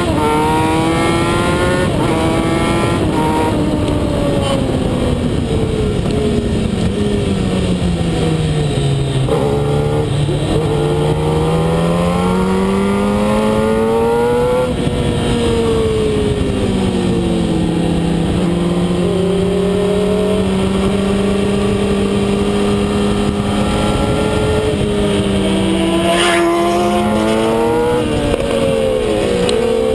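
Kawasaki ZX-10R sportbike's inline-four engine at racing speed, heard from on board: its pitch climbs in quick steps through upshifts, falls away under braking and downshifts, and rises again, over a heavy rush of wind.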